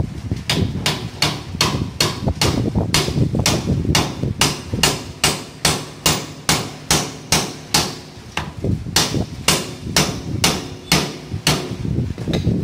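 Steady, rhythmic hand-hammer blows on the steel steering knuckle of an Eicher 364 tractor's front axle, about two to three sharp metal-on-metal strikes a second, ringing briefly after each.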